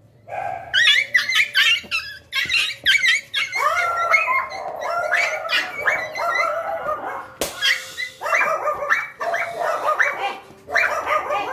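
Pomeranian dog crying out in a rapid series of high yelps and whines while restrained for a sedative injection, with a short pause about two-thirds of the way through.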